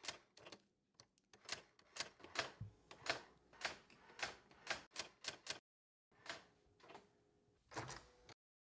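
Faint, irregular clacking of electric typewriter keys being struck, about three or four strokes a second, with a half-second pause about two-thirds in before a few more strokes.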